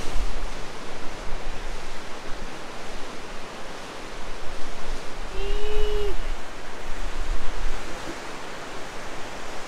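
Rushing mountain river: a steady hiss of fast water over rocks, with wind gusting on the microphone now and then.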